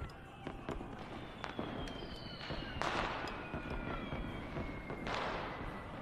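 New Year fireworks: scattered pops and crackles with long whistles sliding slowly down in pitch, and louder bursts about three seconds in and near the end.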